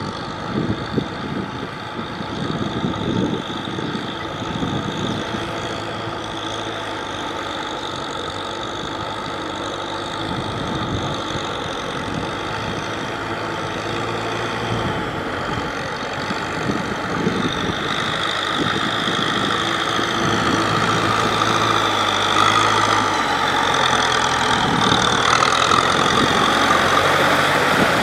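Tractor engine running steadily while ploughing through deep mud, growing louder over the second half.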